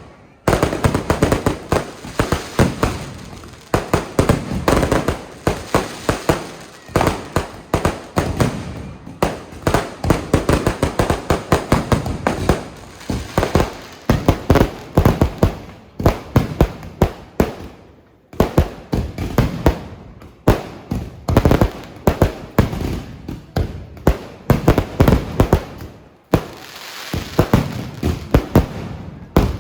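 Fireworks going off in rapid, dense volleys of sharp bangs and cracks, many a second, with a few brief lulls between volleys.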